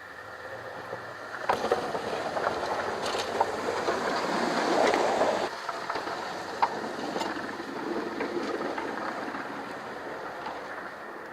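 Snowplow truck pushing snow: a rushing, scraping noise with scattered knocks that builds over the first few seconds, drops off suddenly about five and a half seconds in, and then goes on more softly.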